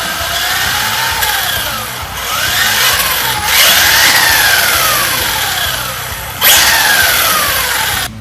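Brushless electric motor and drivetrain of a 1/8 scale RC truggy whining as the throttle is blipped up and down several times, the pitch rising and falling, with the truck held so the wheels spin free. A sharper, louder burst of throttle comes late on, then the sound cuts off.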